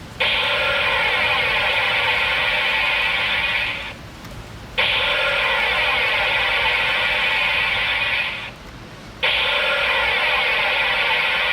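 Electronic sound effect from the 1992 Japanese Ryugekiken toy sword's small speaker, its third sound mode, played three times in a row with short gaps; each play lasts about four seconds.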